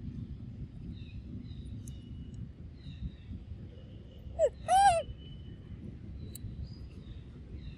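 An animal's loud, short hooting call just before the middle of the clip: a brief rising note, then one arched note. Faint bird chirps and a steady low rumble run under it.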